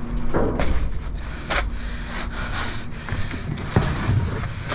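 Rustling, scraping and knocking as someone steps over plastic trash bags inside a steel trash compactor bin and lifts a cardboard car-seat box, a run of irregular handling noises, the loudest about half a second in.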